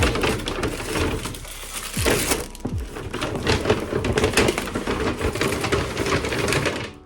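Packaging being handled up close: a dense crunching, crackling rustle with many small knocks and a few short low squeaks.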